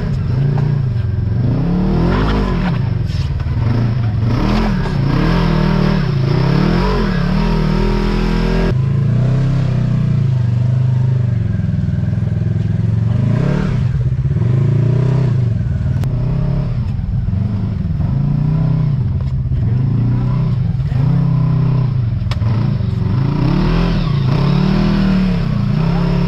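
Side-by-side UTV engine running under load on an off-road trail, its revs rising and falling again and again as the throttle is worked. The sound shifts abruptly about nine seconds in.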